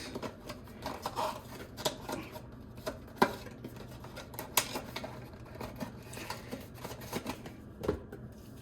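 Plastic microphone packaging and its contents being handled and pulled apart: irregular clicks, taps and light rustles, with a sharp click about three seconds in.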